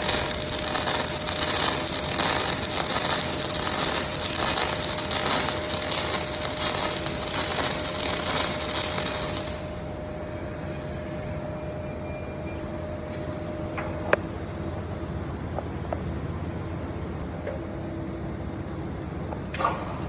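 Robotic welding arc crackling steadily, then cutting off abruptly about halfway through, leaving a quieter steady machine hum with a faint tone and two sharp clicks later on.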